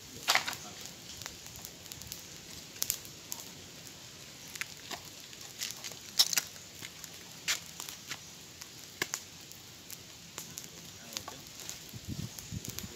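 Irregular sharp clicks and pops, roughly one a second, over a faint steady background; a low rumbling sound comes in near the end.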